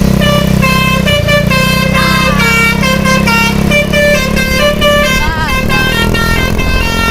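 A bus's telolet multi-tone musical horn playing a quick tune of short stepping notes, with a couple of sliding notes, over the steady low drone of the bus's engine running.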